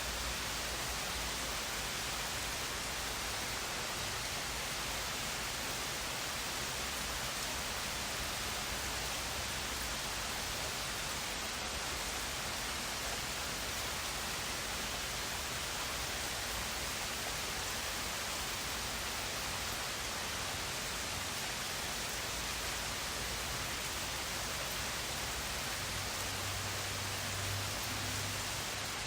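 Steady, even rain hiss, with no single drops standing out.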